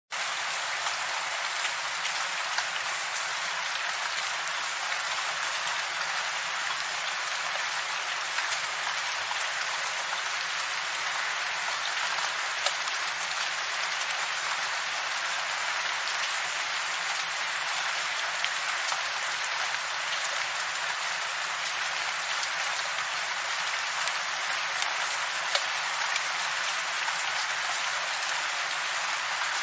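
Steady rain falling, an even, unbroken hiss with a few sharper drop ticks standing out now and then.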